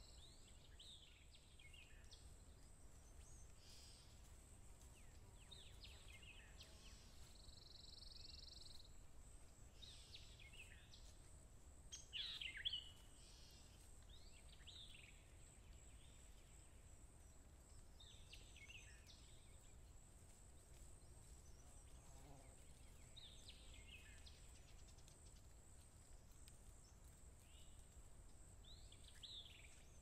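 Faint woodland ambience: birds giving short, down-slurred calls every couple of seconds, the loudest about twelve seconds in, over a thin steady high-pitched insect note.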